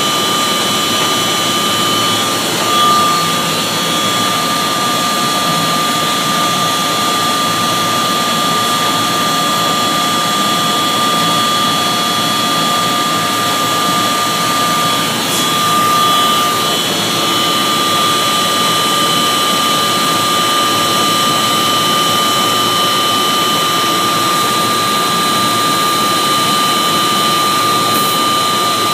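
V-belt drive of a 2 PS machine running with a steady high-pitched whine over its running noise. This is the abnormal noise heard after a new pulley and V-belt were fitted: the V-belt is slipping, and a bearing fault is suspected.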